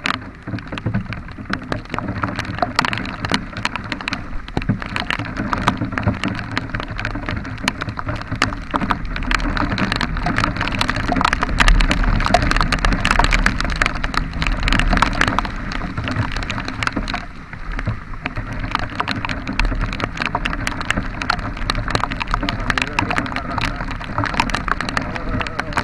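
Rain falling hard, with many drops clicking close to the microphone, over a steady low rumble from the vehicle on the move.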